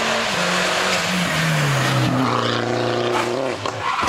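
A red Mini race car's engine running hard, its pitch dropping in several steps. About three and a half seconds in, the engine note gives way to the noise of the car crashing into a roadside barrier.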